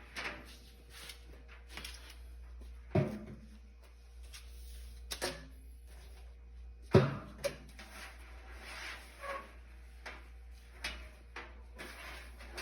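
Knocks and clicks of parts and tools being handled on a clothes dryer, with two heavier thumps, about three and seven seconds in, over a low steady hum.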